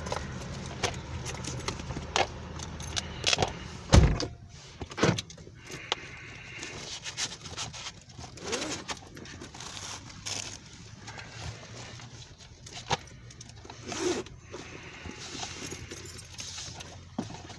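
Plastic DVD cases being handled and shuffled by hand: scattered clicks, taps and rattles, with one loud knock about four seconds in.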